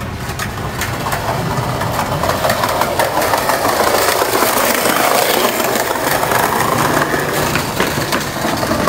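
Skateboard wheels rolling over tiled paving: a steady rumble with many small clicks, growing louder as the board comes close.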